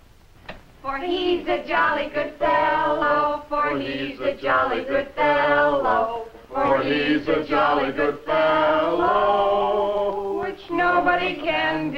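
Several voices, women's among them, singing a song together without accompaniment, in phrases with long held notes.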